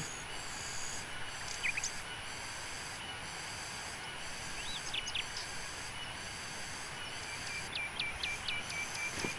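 Tropical garden ambience: a steady high-pitched insect drone that pulses on and off, with scattered bird chirps about two and five seconds in and a quick run of about six chirps near the end.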